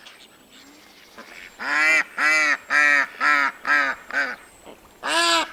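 A duck quacking in a rapid series of about six calls, roughly two a second, starting about a second and a half in, then a new series near the end.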